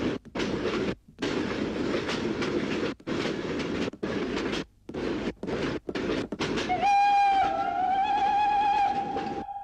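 Soundtrack sound effects: a loud hissing rush of noise broken by short, irregular gaps. About seven seconds in, a wavering whistle-like tone comes in and holds, then trails off at the end.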